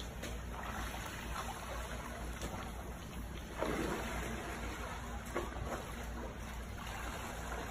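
Swimming pool water sloshing and lapping against the pool edge, stirred up by earthquake shaking, with a louder surge about three and a half seconds in.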